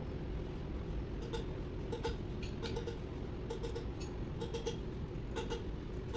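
Steady low workshop hum with short, lightly ringing metallic clicks, mostly in pairs, about once a second.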